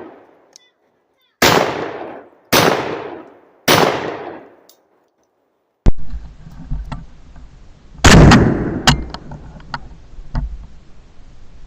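Three 12-gauge shotgun shots from a semi-auto Escort SDX12, about a second apart, each echoing away. After a sharp click about six seconds in comes another louder, bass-heavy blast about eight seconds in, followed by several sharp clicks.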